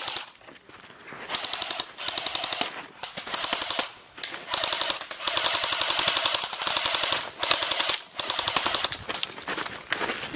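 Airsoft guns firing on full auto: rapid runs of sharp clicking shots in repeated bursts of about one to two seconds each, starting about a second in, with short pauses between bursts.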